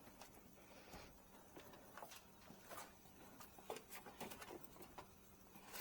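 Near silence with faint, scattered clicks and light taps from hands working loose the plastic front trim of a pickup truck.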